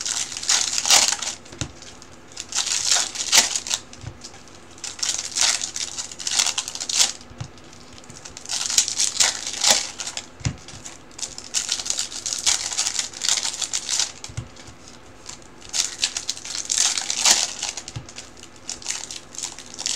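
Foil Bowman Chrome trading-card pack wrappers crinkling and being crumpled in the hands, in repeated bursts of about a second with short pauses between. There are a few soft knocks as cards are set down.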